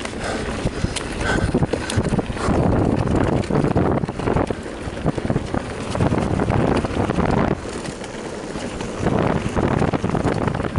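Wind rushing over the camera microphone as an enduro mountain bike descends a rough dirt trail at speed, with tyre rumble and frequent clattering knocks from the bike jolting over bumps.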